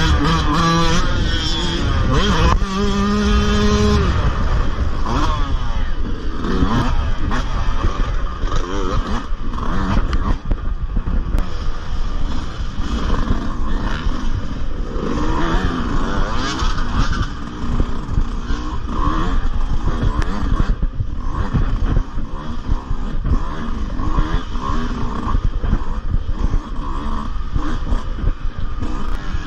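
Yamaha motocross bike's engine running hard under racing load, its revs rising and falling with throttle and gear changes, with frequent knocks and rattles from the bike over rough ground.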